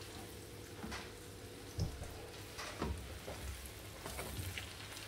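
Eggs frying in a pan: a soft, steady sizzle with fine crackles and a few light knocks about two and three seconds in.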